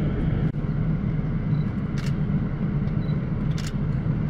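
Steady engine and road rumble heard on board a moving bus, with a couple of brief clicks.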